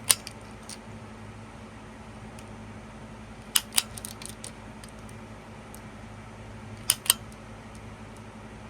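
Plastic toy picture viewfinder being clicked to advance its pictures: sharp double clicks about every three seconds, over a steady low hum.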